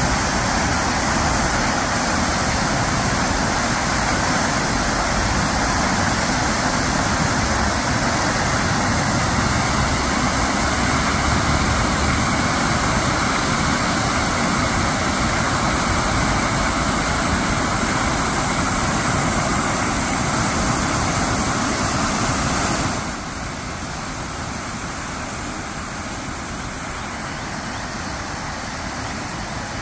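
Illuminated fountain: a tall central jet and ring of small spouts splashing steadily into the pool, a continuous rush of falling water. About three-quarters of the way through it suddenly drops to a quieter, steadier level.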